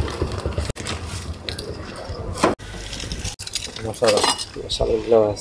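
Stainless steel bowls and utensils clinking and scraping at a street food cart, with a few sharp knocks. A voice speaks briefly near the end.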